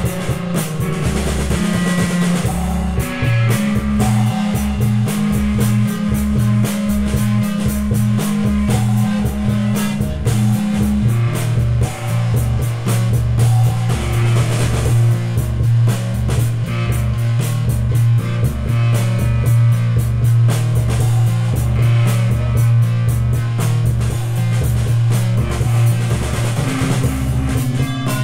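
Instrumental psychedelic rock jam by a drums-and-two-guitars trio: a drum kit keeps a steady beat of about two hits a second under electric guitar and sustained low notes.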